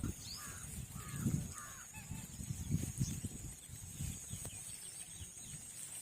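Birds calling at a wetland bird sanctuary: scattered short chirps, with three similar calls in a quick row about a second in, over an irregular low rumbling noise.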